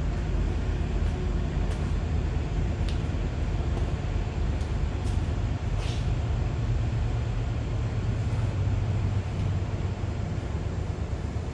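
A train passing, heard as a steady low rumble that eases a little near the end, with a couple of faint clicks.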